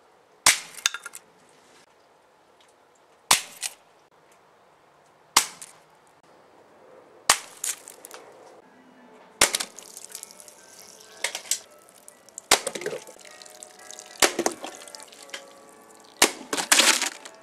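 Air pistol firing eight shots about two seconds apart at a laptop. Each sharp crack is followed a fraction of a second later by a smack of the pellet hitting it, and the later hits trail off in a brief rattle.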